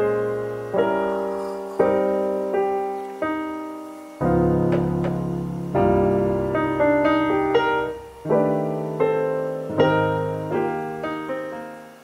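Background piano music: gentle chords and notes, each struck and left to ring away, fading out at the very end.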